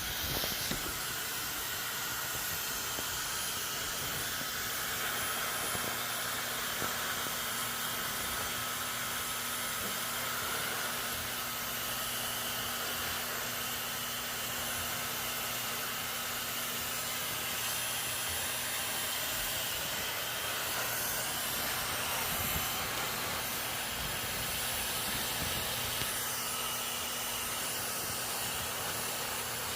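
Hair dryer running steadily: an even rush of air with a low motor hum underneath.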